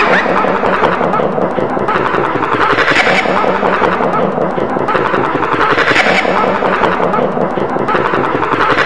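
Many overlapping copies of Felix the Cat's cartoon laugh piled on top of one another into a dense, continuous wall of sound, too thick for single 'ha's to be picked out.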